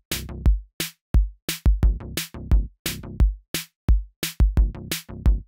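Drum-machine beat: a fast, choppy pattern of heavy kick-drum thumps and sharp snare hits with no other instruments.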